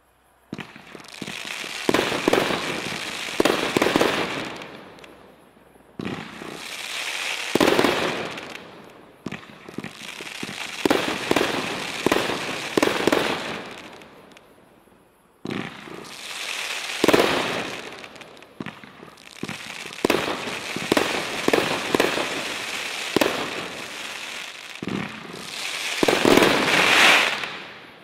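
Brothers Pyrotechnics 'The Program', a 30-shot 500 g consumer firework cake, firing its shots in quick succession. Sharp launch thumps and bursts are followed by sizzling crackle, in about four volleys with brief lulls between them, fading out near the end.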